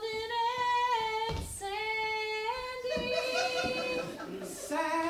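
A woman's voice singing unaccompanied, holding long notes that step up and down in pitch, with a short breath between phrases about a second in.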